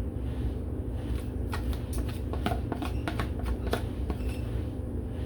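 A spoon scraping and tapping against a mixing bowl as a soft cream cheese and whipped-topping filling is scooped out, a run of light clicks and scrapes, busiest in the middle, over a steady low hum.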